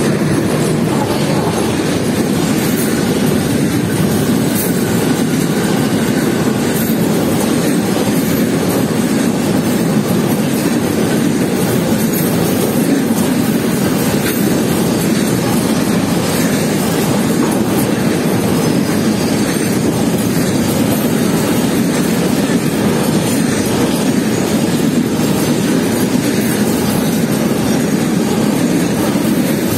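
Container freight train rolling past close by: a loud, steady rumble of steel wheels on the rails as the loaded flat wagons go by, unchanging throughout.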